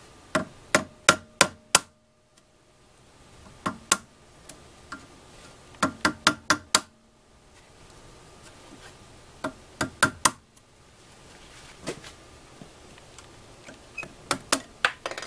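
Sharp taps of a tool striking the black plastic end cap of an electronic EGR valve to work it loose, coming in quick clusters of four or five strikes with pauses between.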